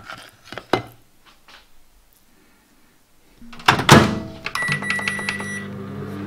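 A few light clicks of a metal spoon against a plastic tub, then a microwave oven's door is shut with a loud thunk about four seconds in. A beep follows, and the microwave starts running with a steady hum.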